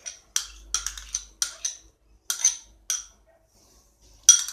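A metal utensil scraping and tapping thick yogurt out of a plastic tub into a steel bowl of flour. It makes a run of short, sharp scrapes and clicks, pauses for about a second, then gives one louder click near the end.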